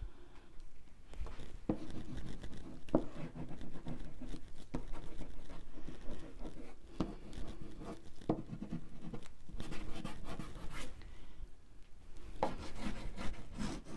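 Oil pastel scratching and rubbing across heavy Arches oil paper in short drawing strokes, a scratchy stroke about every second.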